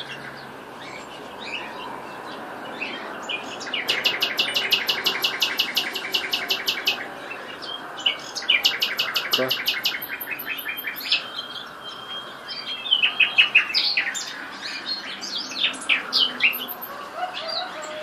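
Songbird singing: two long runs of fast repeated notes, about ten a second, followed by varied short, sharp phrases in the second half.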